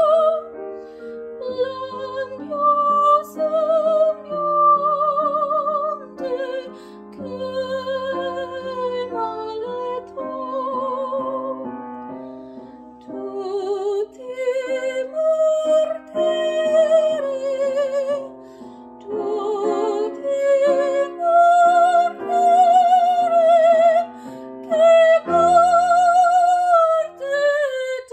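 A woman sings an Italian art song in classical style, holding her notes with vibrato, accompanied by a grand piano.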